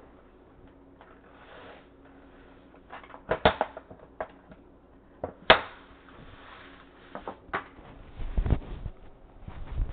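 A few sharp household knocks and clatters in a small room, the loudest a cluster about three and a half seconds in and a single knock about five and a half seconds in, followed by a low rumble near the end.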